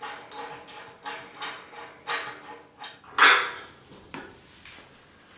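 Metal clicks and clanks of a wrench as a claw foot is bolted onto a cast iron clawfoot bathtub, in irregular strokes about two a second, with one louder clank a little past the middle.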